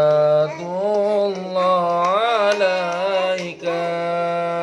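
A voice singing a sholawat, an Islamic devotional song praising the Prophet, in long held notes with ornamented bends. There is a short break for breath about three and a half seconds in.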